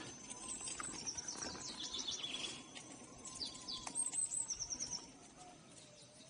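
Small songbirds calling in woodland: scattered high chirps, quick runs of repeated notes and a few short falling trills.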